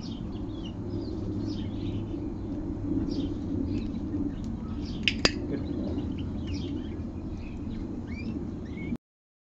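Small birds chirping and twittering over a steady low background hum, with a sharp double click about five seconds in. The sound cuts off suddenly near the end.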